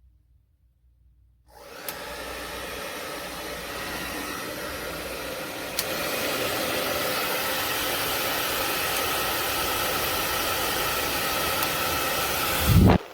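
A WADODO 2200 W ionic hair dryer switched on about a second and a half in and running steadily. A click about six seconds in marks a step up to a louder setting. Near the end comes a brief loud low rumble, and then it cuts off suddenly.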